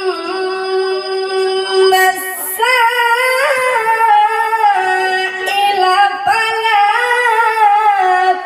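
A boy's voice chanting Quran recitation in a melodic style, with long held notes and ornamented turns, stepping up in pitch twice.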